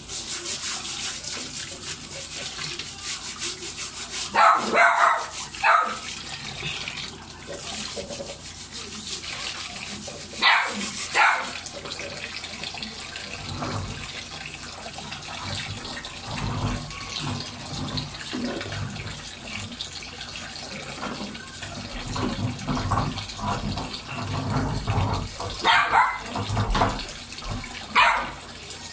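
A dog barking in short bursts, a couple of times around five and eleven seconds in and twice near the end, over a tap running water onto an electric fan's wire guard being rinsed.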